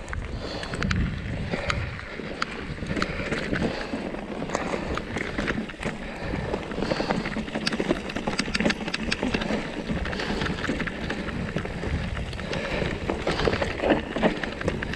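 Mountain bike riding over a rocky, gravelly trail: tyres crunching over stones, with frequent clicks and rattles from the bike and a low rumble of wind and ground noise.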